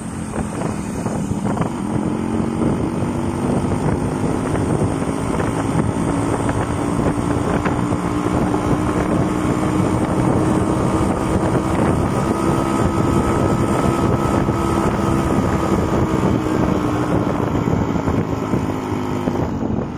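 Yamaha motorcycle engine running at a steady cruise, its pitch creeping up through the middle and dropping near the end, with wind rushing over the microphone.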